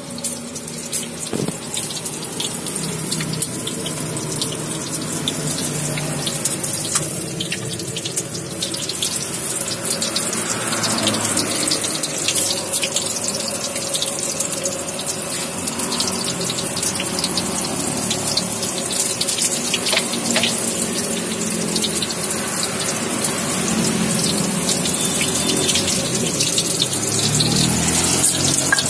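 Hot oil sizzling steadily in a wok as shrimp fritters deep-fry, a constant hiss full of small crackles and pops.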